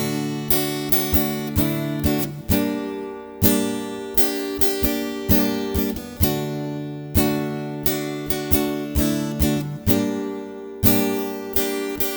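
Acoustic guitar strumming a chord progression, each chord struck sharply and left to ring, as the instrumental intro of a song.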